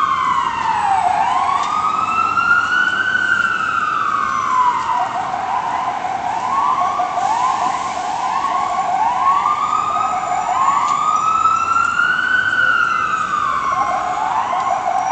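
Emergency vehicle siren, its pitch rising and falling in slow wails, switching for a few seconds in the middle to quicker repeated rising whoops, then back to the slow wail.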